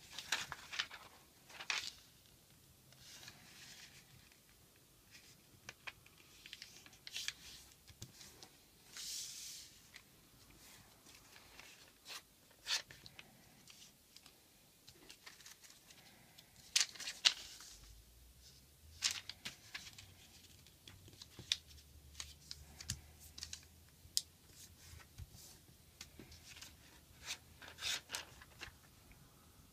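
Origami paper being handled and folded by hand on a tabletop: irregular soft rustles, crinkles and brief crisp crease sounds as the sheets are pressed and slid.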